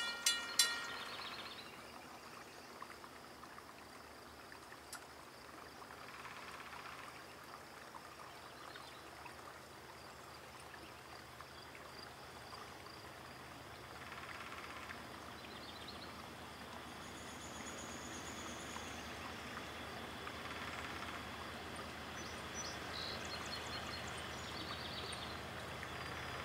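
Grade-crossing warning bell ringing its last few strokes and stopping about half a second in. Then quiet open-air ambience with a few high bird chirps, and a low rumble from an approaching train slowly building toward the end.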